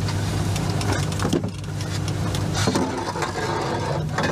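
Boat's outboard motor running at a steady idle, with a few knocks and clatters on deck as a hooked striped bass is fought on a short line and the landing net is taken down.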